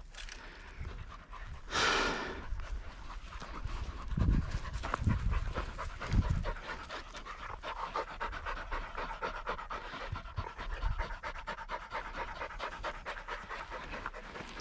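Hunting pointer dog panting rapidly and steadily. A short rush of noise comes about two seconds in, and a few low thumps follow between about four and six seconds.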